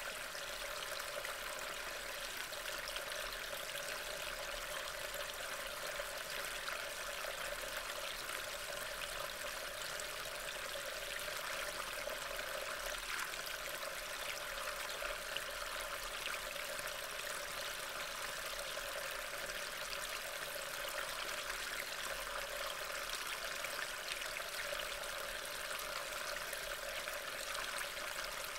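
Steady water-like rushing noise, even throughout, with no distinct events standing out.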